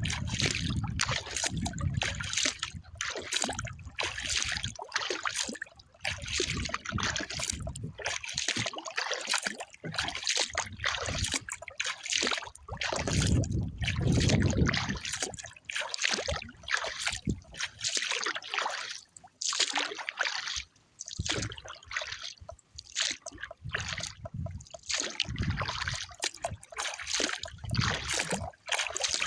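Water trickling and splashing in repeated strokes as a kayak paddle dips and drips, with wind gusts buffeting the microphone now and then, strongest about halfway through.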